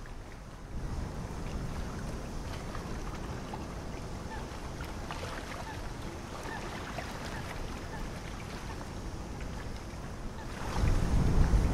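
Wind buffeting the microphone over choppy harbour water, with a stronger gust near the end.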